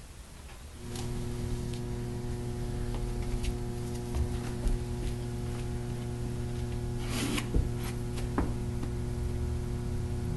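A steady low electrical hum starts about a second in and holds unchanged, with scattered rustles and clicks of people moving.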